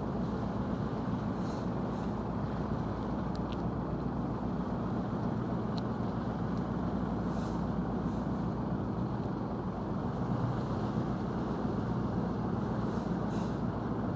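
Large car ferry's engines and onboard machinery running with a steady low drone, with a few short, faint hisses.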